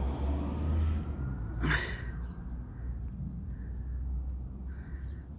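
Water trapped in a VW Crafter's sill, freed through a just-unblocked drain hole, trickling in a thin stream onto wet tarmac under a low steady rumble. A sharp breath close to the microphone about 1.7 seconds in.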